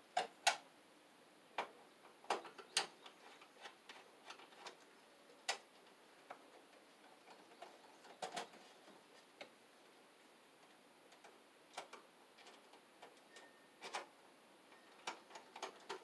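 Irregular light clicks and small metallic taps of a bare copper ground wire being worked into the ground bar of a metal breaker panel, some sharper than others, coming at uneven intervals.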